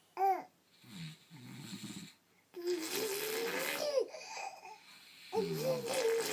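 A baby imitating snoring. A short high squeal comes first, then a low, rough, rattling snore-like sound about a second long, then two longer breathy voiced snorts whose pitch rises.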